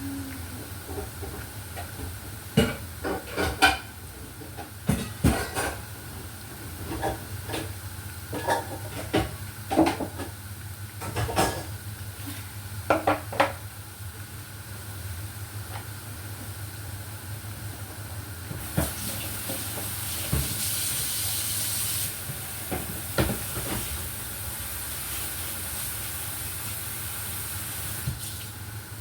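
Kitchen work sounds: a run of scattered knocks and clicks, then a steady hiss for about nine seconds starting about two-thirds of the way in.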